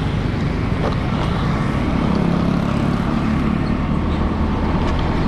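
Motorcycle engine running steadily while riding, heard from the rider's seat with heavy wind and road noise on the microphone.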